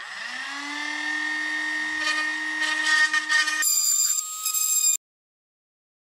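Dremel rotary tool spinning up to a steady high whine, then cutting into a 3D-printed plastic enclosure, with a rasping grind joining about two seconds in. The tone changes abruptly past three and a half seconds and the sound cuts off suddenly about five seconds in.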